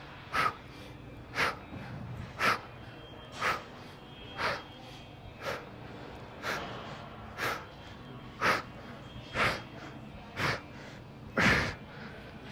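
A man's short, forceful exhales, about one every second, each marking one rep of a weighted single-leg hip thrust.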